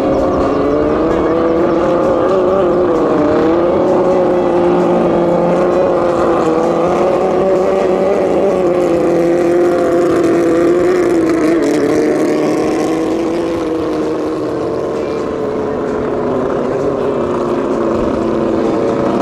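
Racing longtail boat's 650 jet-ski engine running flat out, a loud steady engine note that wavers in pitch, dips briefly about three seconds in and sinks slightly after about twelve seconds.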